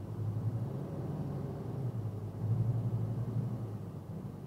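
Low, steady rumble of a moving vehicle's engine and road noise, picked up by a dashcam, swelling slightly midway.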